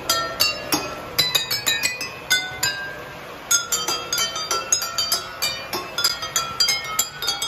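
Intro music: a light, quick tune of bright chiming notes, several a second.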